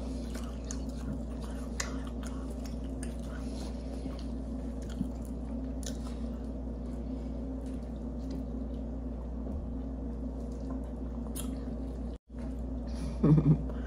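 Close-miked chewing and mouth sounds of people eating submarine sandwiches, faint scattered clicks and smacks over a steady low hum. The sound cuts out completely for a moment about twelve seconds in.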